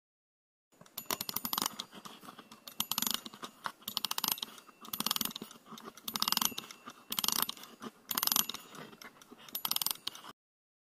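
A toy making rapid ratcheting clicks in repeated bursts, about one burst a second, starting and stopping abruptly.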